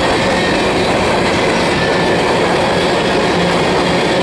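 A freight train's tank cars and covered hoppers rolling past, a steady rumble of steel wheels on rail.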